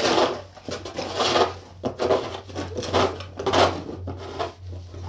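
Plastic snow shovel scraping and crunching through snow in repeated strokes, about one or two a second, over a steady low hum.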